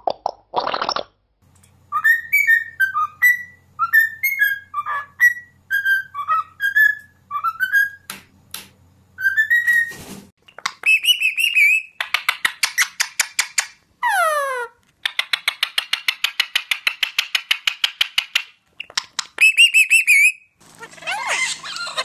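Pet parrots vocalizing. First an African grey parrot whistles a long run of short notes, each sliding up or down, over a faint low hum. After about ten seconds a white cockatoo facing a mirror chirps and makes fast rattling trills with one falling squeal, and a mix of parrot calls starts near the end.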